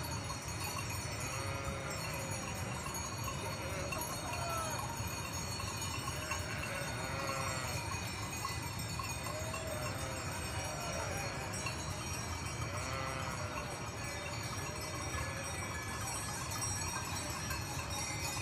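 A flock of sheep bleating again and again, with many bells jingling and ringing, over a steady low rumble.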